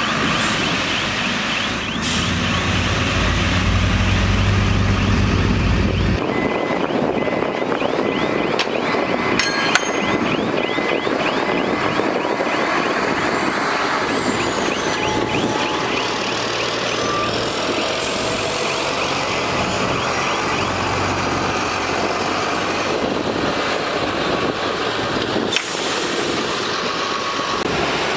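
Diesel engines of a bulldozer and dump truck working, with a heavy, steady engine rumble and clattering. A reversing alarm beeps at a steady pace for several seconds, starting about a quarter of the way in.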